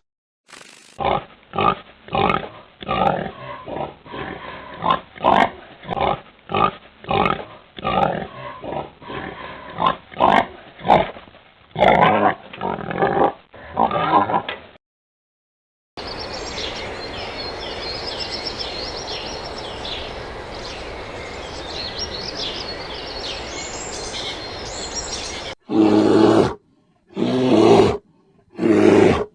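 Animal calls from several different clips: first a long run of short, repeated calls, then a steady noisy background with high chirping over it, then three loud calls near the end.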